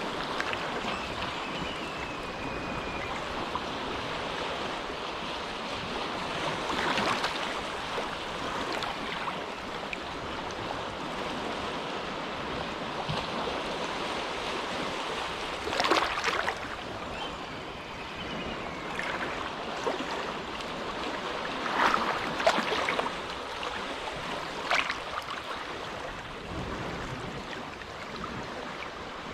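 Small, gentle waves lapping at the shore of a calm cove: a steady wash of water with a few brief, louder splashes, the clearest about halfway through and again around three quarters of the way in.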